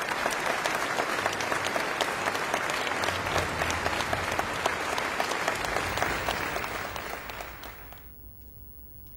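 Concert audience applauding, a dense patter of many hands that dies away about eight seconds in.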